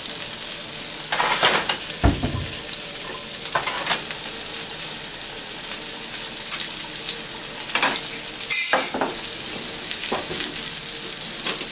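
Skin-on red snapper fillet and vegetables sizzling steadily in frying pans at the end of the sear, the skin browned. Several knocks and clatters of pots and pans being handled break in, the loudest about three-quarters of the way through.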